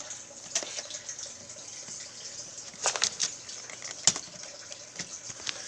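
A few sharp clicks and taps, like small objects being handled, over a steady rushing hiss.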